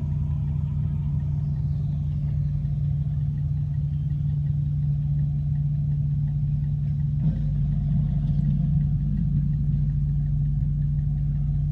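Heavy engine of a 40-ton mobile crane running steadily at a constant speed, a low hum. A single short knock about seven seconds in.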